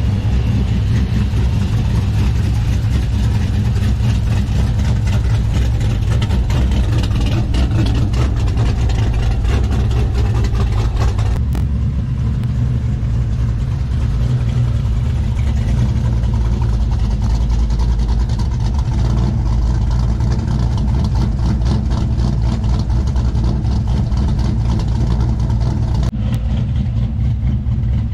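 LS V8 swapped into an OBS pickup running with a loud, deep exhaust, steady throughout; the sound shifts abruptly about 11 seconds in and again near the end.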